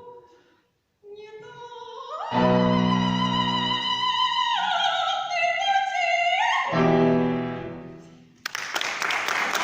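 A solo classical female voice holds long, high final notes, dipping and then rising again, over piano chords as a song ends. Applause breaks out near the end.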